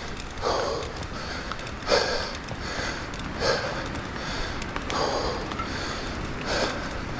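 Mountain biker breathing hard, about one loud breath a second, over a steady low rumble.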